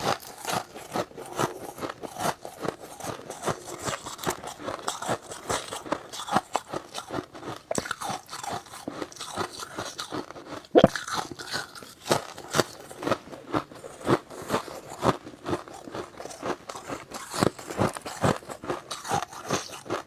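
Close-miked chewing of freezer frost: a steady run of sharp crunches, a few each second, with one especially loud crunch about halfway through.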